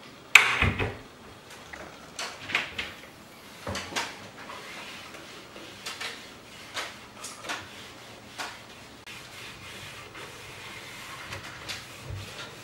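Kitchen wall-cabinet lift-up doors being handled and wiped down with a cloth. There is a sharp knock about half a second in, then scattered lighter clicks and knocks with rubbing between them.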